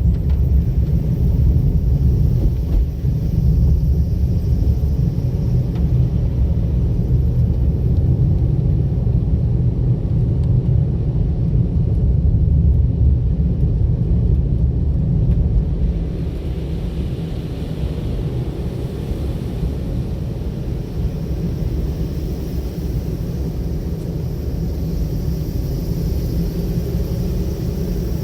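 Car driving: a steady low rumble of engine and road noise, dropping a little in level just over halfway through.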